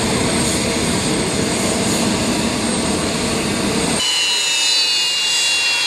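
Beriev Be-200's twin turbofan engines running as the amphibian skims the water, a steady dense rush of noise. About two-thirds through, this gives way to a high turbine whine that slides slowly down in pitch.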